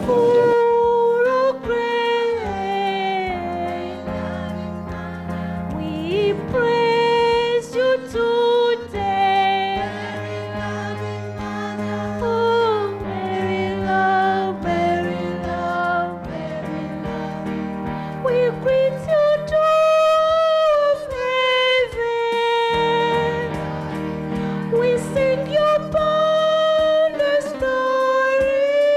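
A song: one voice singing a melody with held, wavering notes and slides between them, over a steady instrumental accompaniment.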